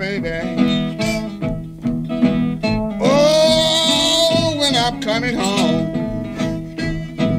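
Country blues played on bottleneck slide guitar and harmonica, with sliding pitches and a long held note about three seconds in that lasts about a second and a half.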